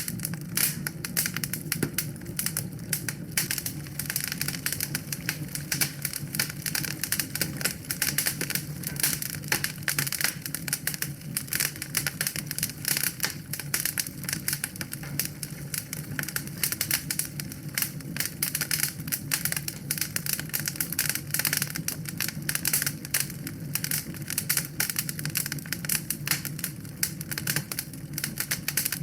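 Wood fire crackling: a dense, irregular stream of sharp pops and snaps over a low steady rumble of burning.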